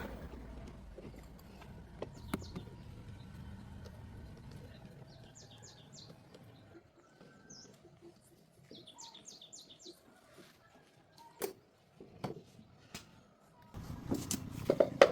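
A bird chirping in two quick trills of short high notes, a few seconds apart, with scattered sharp clicks and knocks. A louder clatter of handling noise starts near the end.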